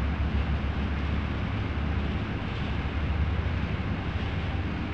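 Steady low outdoor rumble with a thinner hiss above it, unbroken and without distinct events.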